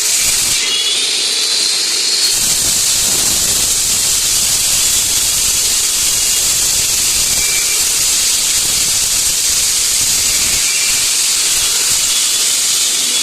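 A 16-inch concrete slab cutting saw cuts through concrete, its blade making a loud, steady, hissing grind.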